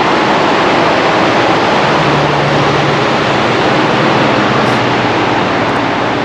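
Rapids and a small waterfall on Pocono Creek rushing: a loud, steady roar of water.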